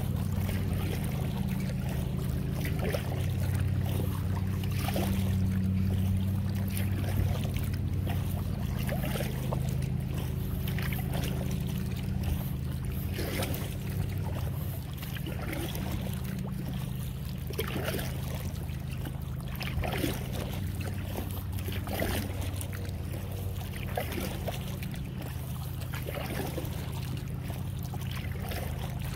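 Kayak paddle strokes dipping and splashing in calm water about every two seconds. A steady low hum runs underneath.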